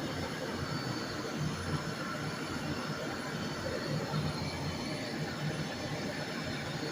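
Oil burner firing steadily on a small three-section cast-iron boiler: an even rush of blower and flame with a low hum, the flame established after ignition.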